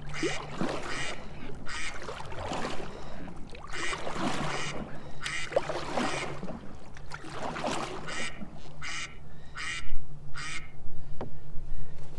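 Ducks quacking over and over, short calls every second or so, with a low steady hum underneath.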